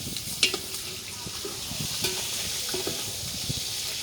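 Food sizzling in hot oil in a pot over a wood fire: a steady high hiss, with one sharp knock about half a second in and a few lighter clinks after it.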